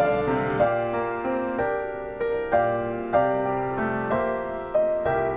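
Solo piano playing a slow piece, single notes and chords struck every half second or so.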